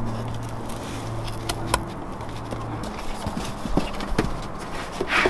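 Scattered light knocks and clicks from trimming and handling a template. A low steady hum stops about halfway through.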